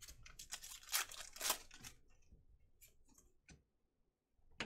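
A plastic-foil trading-card pack of 2017 Panini Chronicles baseball being torn open and crinkled for about two seconds, then a few light ticks as the cards are handled.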